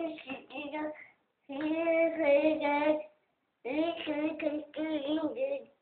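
A young child singing: three short phrases of held notes with slight wobbles in pitch, the first broken into quick syllables.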